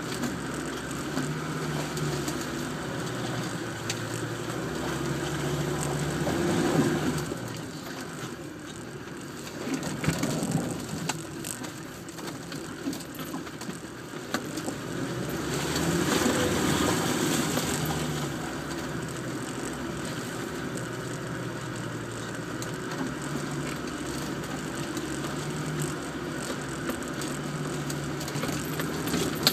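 Land Rover Defender engine pulling at low speed through deep muddy ruts, heard from inside the cab. The revs rise about 7 seconds in and again around 16 seconds, with scattered knocks and rattles from the body over the ruts.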